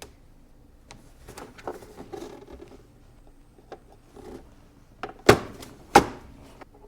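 Hands working hook-up wire into the spring terminals of an electronics project kit: soft rustling and handling noise, small clicks, then two sharp snaps less than a second apart near the end.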